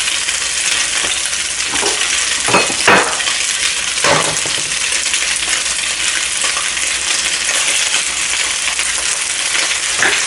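Stir-fried pork sizzling steadily in hot oil in a pan, with a few sharp metallic clinks against the pan about two and a half to four seconds in.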